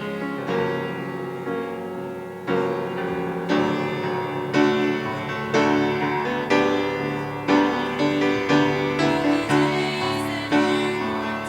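Piano music: chords struck about once a second, each ringing on, with quicker notes near the end.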